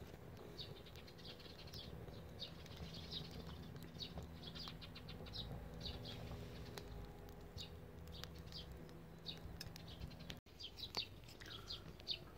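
Wood fire burning on a wire grill grate, with faint irregular crackles, and small birds chirping now and then.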